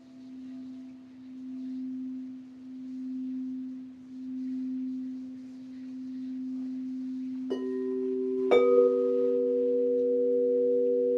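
Crystal singing bowls: one bowl holds a low tone that swells and fades in slow waves, then a second and a third bowl are struck about a second apart, each adding a higher pitch that rings on with the first.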